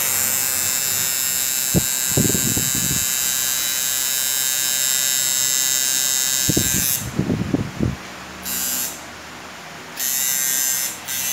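Coil tattoo machine buzzing steadily as it works on skin. It is switched off about seven seconds in, buzzes again for a moment, then starts up again about ten seconds in. A few low thumps are heard around two and seven seconds in.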